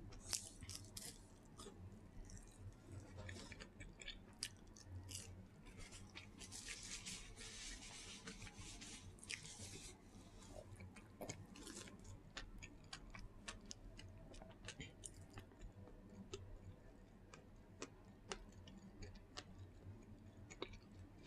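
Close-up mouth sounds of a person chewing Burger King chicken: many small wet clicks and smacks, quiet overall. There is a few seconds of soft hissing rustle about a third of the way in.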